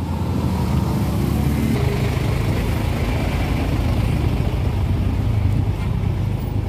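Road traffic: the steady low engine rumble of a heavy truck running close by.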